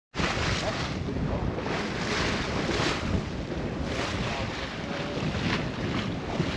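Wind buffeting the microphone over water rushing and splashing along the hull of a sailboat heeling through choppy sea, with a swell of spray every second or so.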